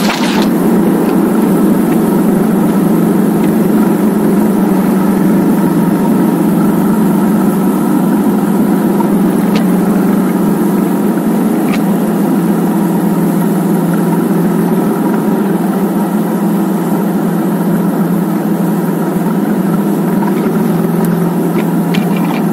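Cruiser motorcycle riding at a steady road speed: the engine runs with an even, unchanging drone, mixed with a steady hiss of tyres on the wet road.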